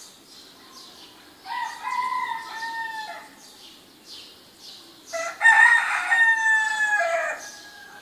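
A rooster crows twice: the second crow is louder and longer, and each ends in a falling tail. Small birds chirp faintly throughout.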